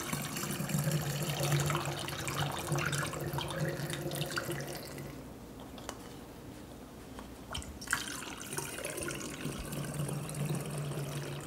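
Fruit kefir poured from a glass jar through a funnel into a glass swing-top bottle, a steady rush of liquid for about five seconds. After a quieter pause there is a single sharp click about eight seconds in, then a second pour.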